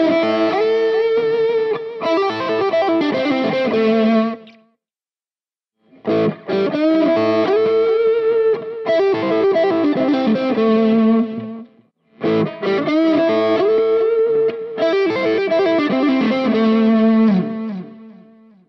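Fender Stratocaster with hand-wound Collins Five 9 pickups, played through the overdrive channel of a Marshall JVM 410 with added reverb and delay. A short distorted lick is played three times, with brief gaps between, as the pickup selector moves from the middle pickup to the fourth position (middle and neck) to the neck pickup.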